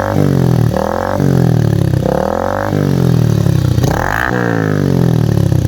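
Motorcycle engine revved about four times through an aftermarket exhaust, each quick rise in pitch falling away again. A dB killer baffle is fitted in the exhaust.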